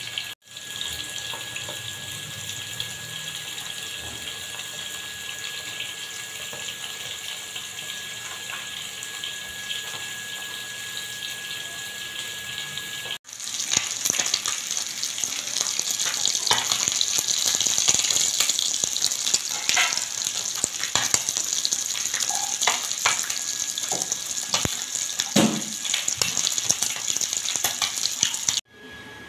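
Small whole bata fish shallow-frying in hot oil, a steady sizzle full of crackling pops, loudest in the second half. Before that comes a quieter, steadier hiss.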